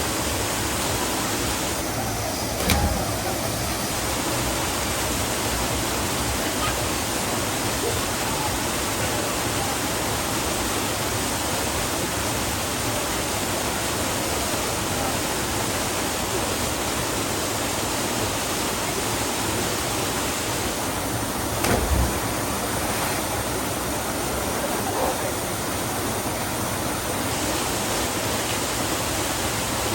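Steady rushing roar of a waterfall, with two brief thumps, about three seconds in and again about twenty-two seconds in.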